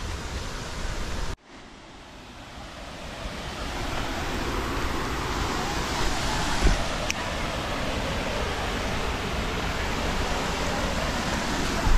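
Steady rushing of a waterfall. It cuts out suddenly a little over a second in, then swells back up over the next couple of seconds and holds steady, with a faint knock and click in the middle.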